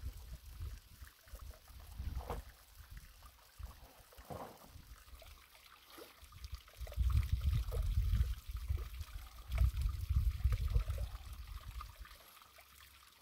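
Black plastic pond liner crinkling and rustling in scattered small crackles, with wind buffeting the microphone in two strong low gusts past the middle.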